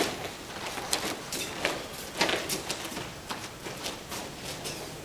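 Bare feet slapping and shuffling on a foam gym mat, with cloth rustling, in an irregular series of short soft impacts as the attacker gets up from a roll and steps back in.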